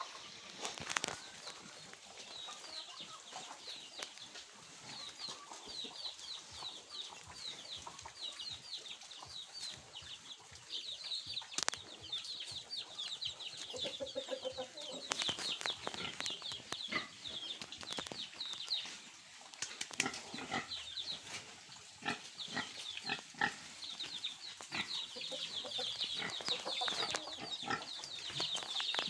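Backyard farmyard sound of chickens clucking around a pig pen over continuous rapid high-pitched chirping. Scattered knocks and clatters come in the second half.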